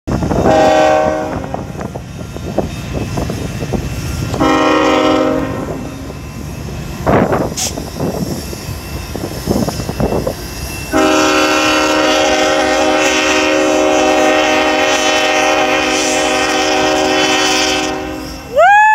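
Freight locomotive air horn sounding two short blasts and then one long blast of about seven seconds, several notes at once, over the rumble and clatter of a fast-moving freight train's wheels on the rails.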